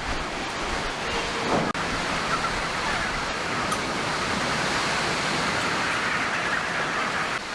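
Heavy rain with strong wind, a steady loud rushing noise that cuts out for an instant just under two seconds in.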